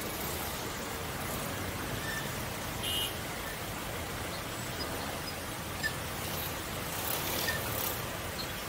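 Road traffic at a busy roundabout: a steady mix of vehicle engines and tyre noise, with a brief high chirp about three seconds in.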